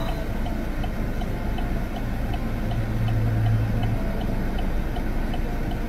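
Steady, regular light ticking, about three ticks a second, over a constant low hum, with a low drone sounding for about a second in the middle.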